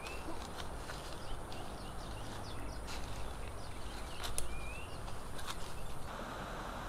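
Quiet bamboo-grove ambience: a steady hush with a few faint ticks, and a bird giving a short rising whistle. About six seconds in, the steady rush of flowing stream water takes over.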